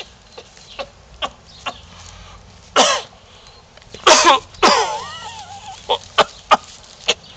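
A fit of coughing: a string of short coughs, with louder, longer hacking coughs about three seconds in and again between four and five seconds, some with a wheezy edge.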